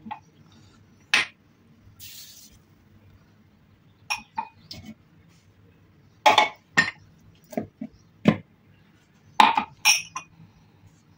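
A glass measuring cup knocking and clinking against a plastic blender jug as semolina and flour are tipped in, in several clusters of sharp knocks. A short soft hiss comes about two seconds in.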